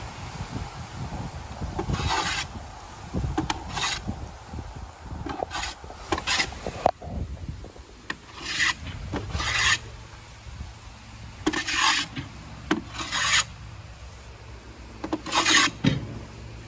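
Hand plane cutting along the edge of a wooden casement sash: about a dozen separate rasping strokes at an uneven pace, each peeling off a shaving.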